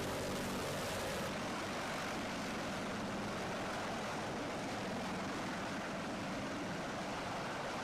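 Steady, fairly faint aircraft engine noise, an even hum with no distinct events.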